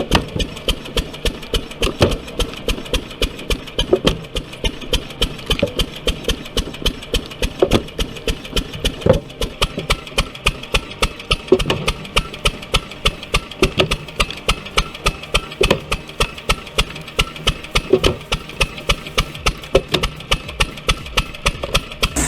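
Old engine running steadily with a deep, rhythmic thump-thump, about three to four even beats a second.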